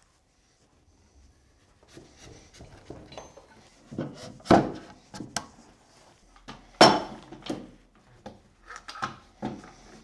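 Wooden workbench-base parts being handled and fitted together: irregular knocks and clunks of wood on wood, the loudest about four and a half and seven seconds in, after a near-quiet start.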